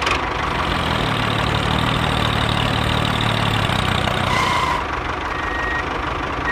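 A tractor engine idling steadily: a low, even hum under a noisy rattle, easing off slightly after about four and a half seconds.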